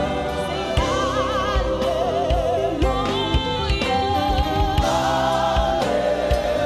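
Live gospel worship music: a woman sings lead into a microphone, with wavering runs and held notes, over a band with a regular drum beat.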